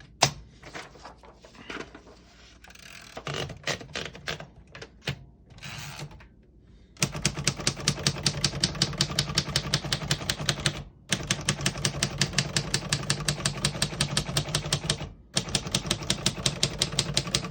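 1952 Royal Quiet Deluxe portable typewriter: a few scattered clicks and knocks of the machine being handled, then fast typing at about six keystrokes a second from about 7 s in, stopping briefly twice. All the keys type cleanly, none skipping or sticking.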